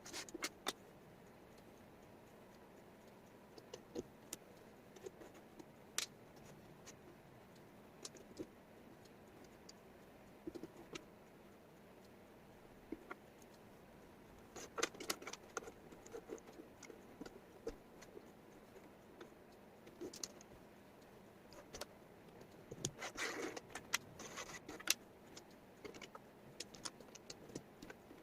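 Small wooden jigsaw puzzle pieces clicking and tapping as they are handled and set down, in scattered light clicks with two busier flurries about halfway through and near the end.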